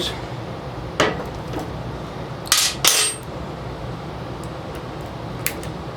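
Metal tools and screws being handled: a sharp knock about a second in, two louder metallic clatters near the middle, the second with a brief ring, then a few light ticks.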